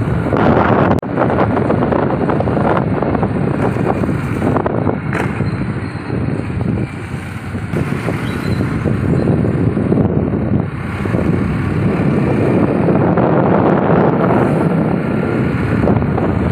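Wind buffeting a phone's microphone on a moving two-wheeler, over the bike's engine and road noise. It eases for a couple of seconds around the middle.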